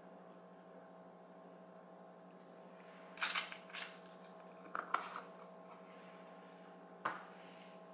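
A few light clicks and knocks of small plastic powder jars being handled, put down and picked up, with a sharp single click near the end. Under them a faint steady electrical hum.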